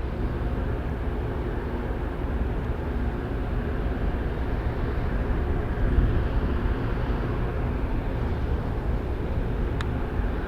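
Large ro-pax ferry's engines and machinery giving a steady low rumble with a faint hum, as the ship comes in to berth. A faint click near the end.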